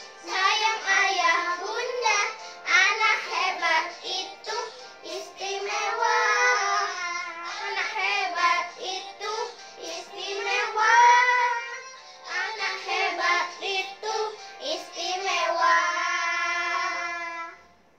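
Three children singing a song together in Indonesian, ending on a long held note shortly before the end.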